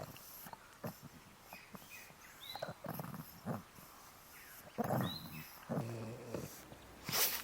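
A pug making several short, low-pitched vocal sounds, bunched about two-thirds of the way in.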